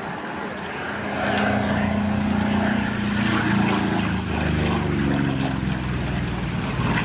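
Corsair's 18-cylinder Pratt & Whitney R-2800 radial engine and propeller droning through a low display pass. It grows louder about a second in and its pitch sinks slightly in the second half as it goes by.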